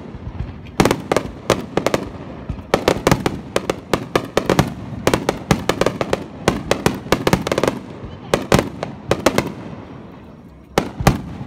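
Aerial firework shells bursting in quick succession: sharp bangs with rapid crackling pops between them. The bursts thin out about eight seconds in and pick up again near the end.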